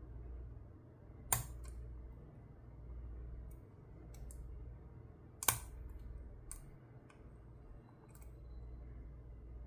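Picking a five-pin SC1-keyway knob cylinder lock: small scattered metallic clicks from the pick and tension tool working the pins, with two sharper clicks about a second in and about five and a half seconds in, over a low steady hum.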